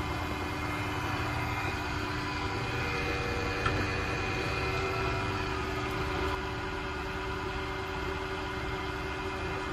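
Steady hum of a running vertical milling machine's electric motor, holding several constant tones over a low rumble.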